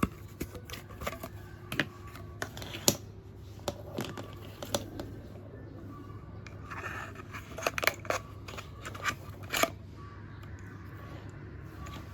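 Irregular sharp clicks, taps and scraping of hands working with small objects, over a low steady hum; the clicks cluster thickest about two-thirds of the way through.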